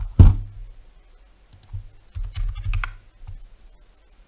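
Computer keyboard keystrokes and mouse clicks in short clusters as values are typed into fields, with one louder knock about a quarter second in.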